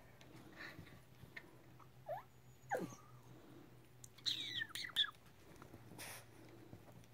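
Two small dogs play-wrestling, giving short, high-pitched squeaky yips and whines: one about two seconds in, a falling one soon after, and a cluster of squeals around four to five seconds in. A faint steady low hum runs underneath.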